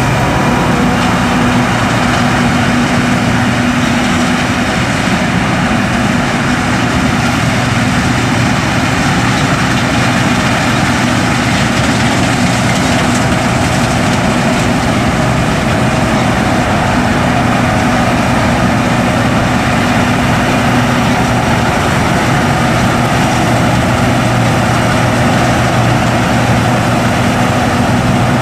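John Deere S550 combine harvester running steadily while harvesting, a constant engine hum under a dense machine noise with no change in speed.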